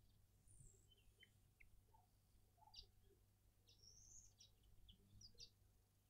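Near-silent garden background with faint, scattered short high chirps and whistles of small birds, over a steady low hum.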